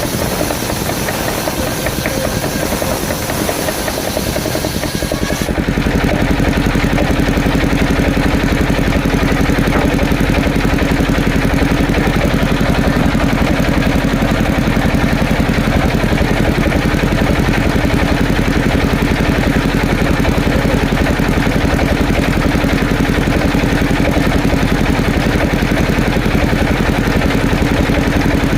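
Small engine running steadily at an even speed, like an idle. About five and a half seconds in the sound changes abruptly, losing its hiss and becoming a little louder and more even.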